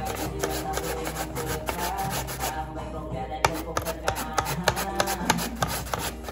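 Taro root being shredded on a wooden mandoline slicer into a bowl, in quick repeated strokes.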